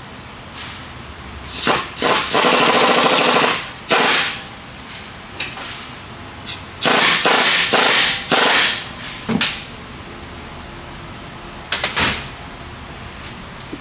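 Pneumatic impact wrench hammering in several bursts, the longest about a second and a half, as it runs down fasteners on the new upper control arm of the front suspension.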